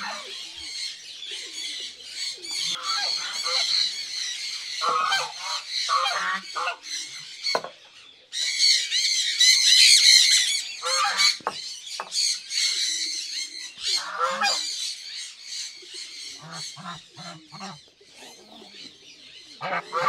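Domestic geese honking repeatedly amid a busy chorus of higher bird calls, loudest about halfway through.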